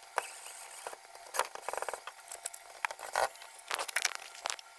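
Irregular clicks, taps and scratchy rustles of hands working at a white plastic ceiling lamp socket with a cordless drill-driver held close by. A short buzz comes a little under two seconds in.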